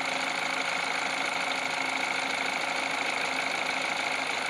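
Peugeot 308's 1.6 EP6C petrol engine idling cold, running steadily. The cold-start clicking rattle is absent now that the water-pump drive tensioner arm ('guitar') has been packed with grease.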